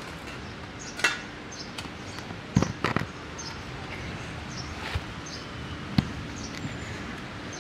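Sharp knocks and clanks of hand tools at work on a fence post being dug out, about six strikes at uneven intervals with a quick pair near the middle. Small birds chirp in the background.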